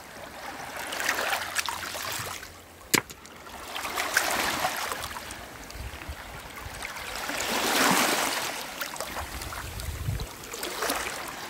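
Small waves washing over pebbles in shallow seawater, swelling and fading about every three to four seconds. A single sharp click about three seconds in.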